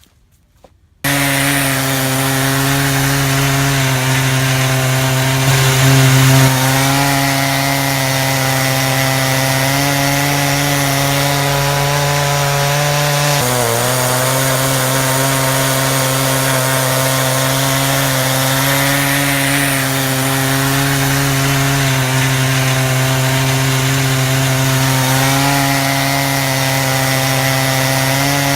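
Chainsaw with a skip chain running at full throttle as it rips a slab from a hickory log in a motor-fed rail mill: a steady, even drone that starts abruptly about a second in and dips briefly in pitch about halfway through, as the saw takes a heavier bite.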